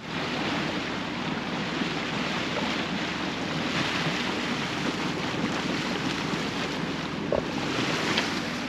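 Steady rush of a sailboat under way on calm water: water running along the hull mixed with wind noise on the microphone.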